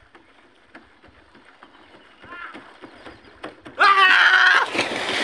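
Bare feet running on a floating plastic pontoon dock, a quick run of footfalls growing louder, then a loud yell about four seconds in as the runner leaps, followed by a splash into the water near the end.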